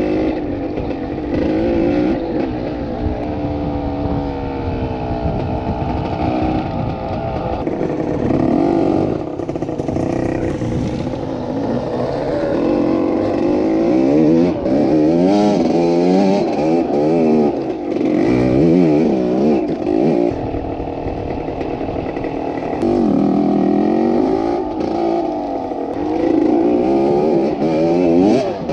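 Enduro dirt bike engine ridden off-road, its pitch rising and falling again and again as the throttle is opened and closed, with some clatter from the bike over the rough ground.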